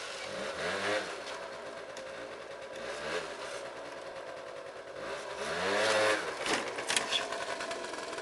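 Vespa ET2's 50cc two-stroke scooter engine revved up and let back down: a strong rev about a second in, a smaller one near three seconds and the loudest around six seconds. A few sharp knocks come around seven seconds.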